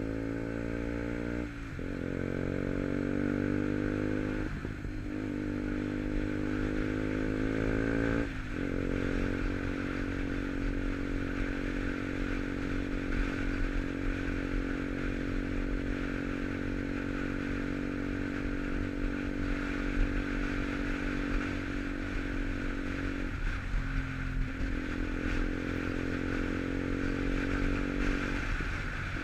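KTM Duke 125's single-cylinder engine through an aftermarket Arrow exhaust, pulling through the gears: the pitch climbs and drops at upshifts about 1.5, 5 and 8 seconds in. It then holds a steady cruise, with a brief throttle lift about 24 seconds in and another near the end.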